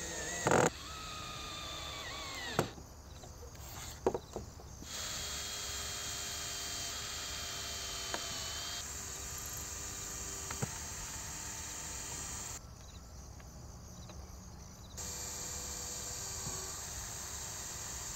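Cordless drill driving screws into wood: the motor whines steadily in runs of several seconds with short stops between screws, and a few sharp clicks near the start.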